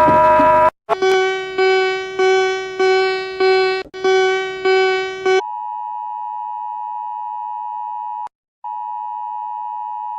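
Emergency Alert System alarm tones. A run of repeated pitched beeps, each fading away, comes about two a second. It gives way to a steady, higher alert tone, which breaks off once for a moment before resuming.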